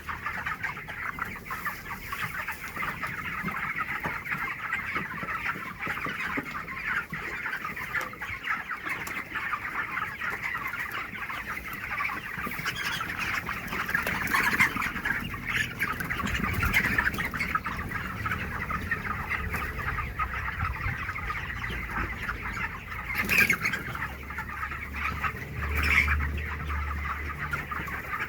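A flock of 25-day-old chickens calling together in a continuous dense chatter of many overlapping calls, with a few louder calls standing out. A low hum comes in briefly near the end.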